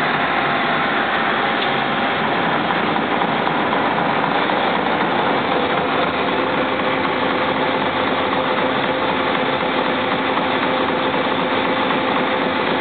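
Mazak CNC milling machine's face mill cutting across the end of a metal block, squaring it up: a steady spindle whir and cutting noise with a few held tones.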